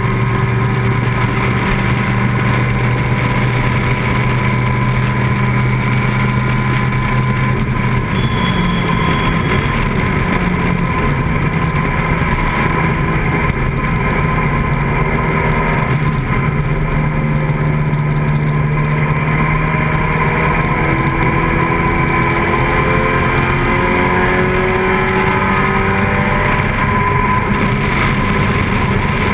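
Vintage open-cockpit sports racing car's engine at speed on a road course, heard from the driver's seat. The engine note holds steady, shifts about a third of the way in, and climbs again near the end as the car accelerates.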